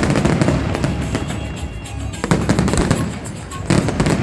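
Aerial fireworks bursting in rapid succession, dense bangs and crackles over a continuous low rumble, with a fresh barrage of loud bursts shortly before the end. Music plays along with the display.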